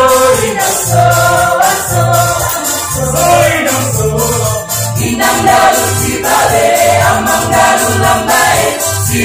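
Mixed choir of men and women singing an upbeat song together over a steady, danceable beat of about two strokes a second.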